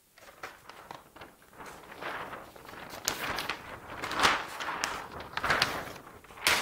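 A large flip-chart sheet of paper being lifted and turned over on its easel, rustling and crackling in uneven bursts, loudest about four seconds in, with a sharp crackle near the end.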